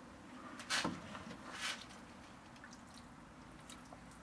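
Water poured onto a cloth laid over a person's face, splashing in two brief bursts about a second apart.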